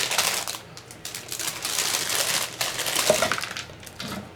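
Plastic kit bags crinkling and hard plastic sprues clicking and clattering as they are handled. The crinkling and clicking come in two stretches, a short one at the start and a longer one from about a second in.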